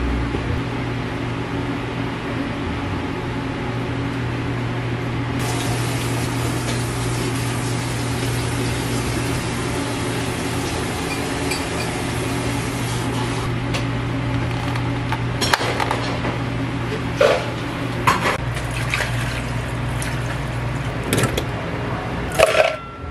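Steady hum of cafe equipment, with a few clinks and scrapes from spooning yogurt and fruit sauce into a plastic cup, mostly in the last eight seconds.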